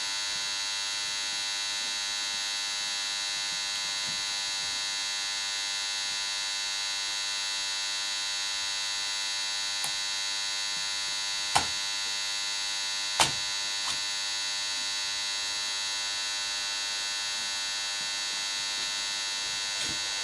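Steady electrical hum made of many fixed high tones, with two sharp metallic clicks about halfway through as the engine's cast-iron cylinder is handled on its studs.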